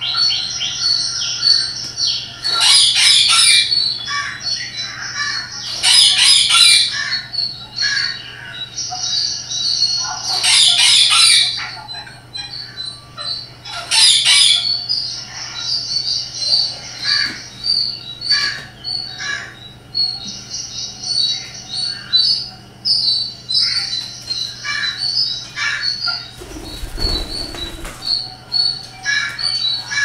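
Pet parrot chirping almost continuously in short high notes, with four loud harsh squawks a few seconds apart in the first half. A short burst of noise comes near the end.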